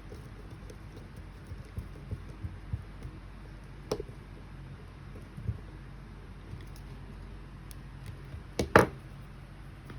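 Small objects handled on a work surface: a few soft, light knocks, a sharp click about four seconds in, and a louder double click near the end, over a low steady hum.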